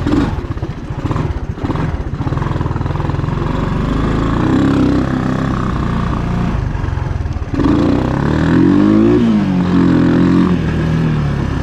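1980 Honda ATC185's single-cylinder four-stroke engine running on a test ride, the revs going up and down with the throttle. About seven and a half seconds in it gets louder and revs up and back down.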